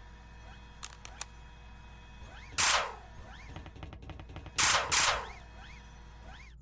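Animated sci-fi gunfire sound effects: three loud blaster shots, each falling in pitch as it fades, one about two and a half seconds in and a quick pair near the end, with a rapid run of ticks between them over a faint steady electronic hum.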